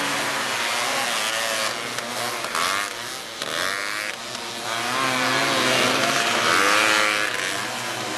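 Engines of several small off-road racing buggies, revving up and down as they race around a dirt track, with several pitches overlapping. The sound drops back briefly a few seconds in, then swells again.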